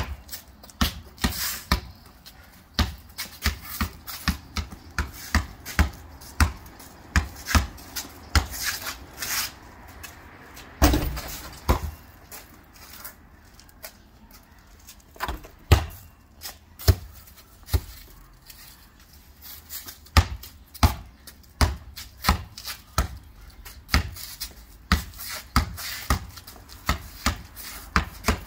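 Basketball bouncing on a concrete patio as it is dribbled: a quick, uneven string of sharp bounces, about two a second, with a heavier thump about eleven seconds in and fewer bounces for a few seconds after it.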